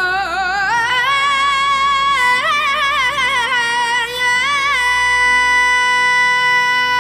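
Background song: a solo voice sings a wavering, ornamented melody, then holds one long steady note.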